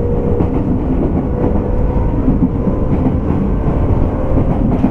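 Running sound recorded inside a JR West 201 series electric train car, the motor car MoHa 200-247: a steady rumble of the wheels on the rails and the running gear as the train moves along the line.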